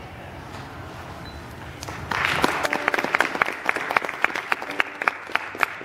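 A brief hush, then audience applause breaks out about two seconds in, with sharp individual claps close by standing out from the rest.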